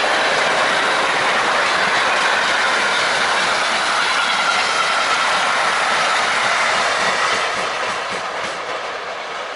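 A freight train of empty double-deck car-carrier wagons rolling past on the rails. The noise is steady, then fades about seven seconds in as the end of the train goes by.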